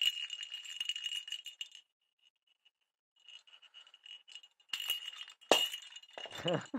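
Small bell inside a plastic cat toy ball jingling and rattling as the ball is shaken by hand. It stops for about a second and a half, then starts again, with a sharp knock about five and a half seconds in.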